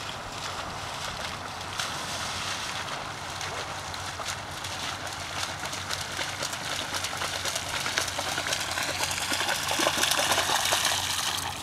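Water splashing as a dog bounds through shallow water toward the shore with a retrieve dummy in its mouth, loudest near the end.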